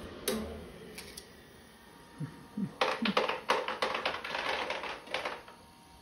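A pet monkey's hands tapping and scrabbling on a glass patio door: a sharp click early, then a rapid run of taps and clicks lasting about two and a half seconds from near the middle.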